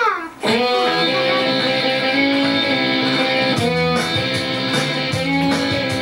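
Instrumental guitar intro of a country-style radio jingle, starting about half a second in.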